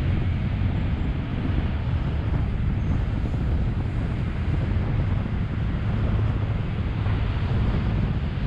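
Steady low rumble of road traffic mixed with wind on the microphone.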